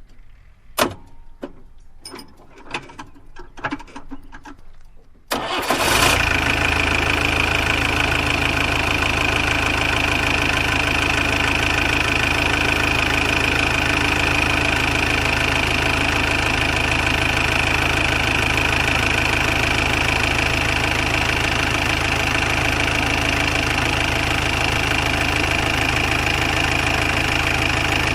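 Jeep engine: a few scattered clicks and knocks, then about five seconds in the engine starts and settles into a steady idle.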